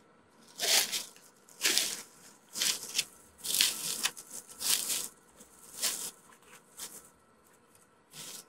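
Footsteps crunching, about one step a second.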